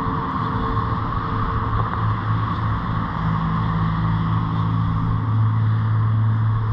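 A steady engine-like drone, its low hum growing stronger about three seconds in.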